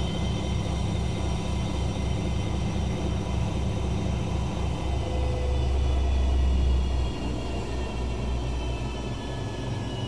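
Daewoo DWD-FT1013 front-loading washing machine running its drum: a pulsing low hum with a thin motor whine above it. About five seconds in the pulsing turns into a louder steady hum that eases off after a couple of seconds, and the whine falls slowly in pitch near the end.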